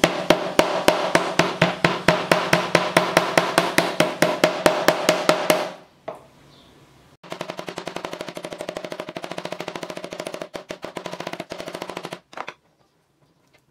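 Wooden meat mallet pounding strips of fatty meat flat on a wooden cutting board. Rapid, even blows come about five a second for nearly six seconds, stop for about a second and a half, then resume faster and lighter for about five more seconds.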